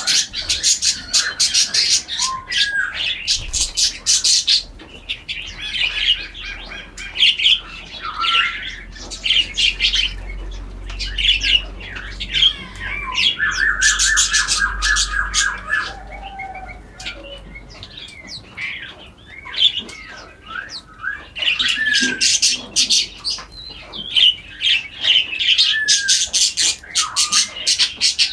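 Several birds singing and calling together, a dawn chorus of overlapping fast trills, short chirps and whistled notes, with a steady low rumble underneath.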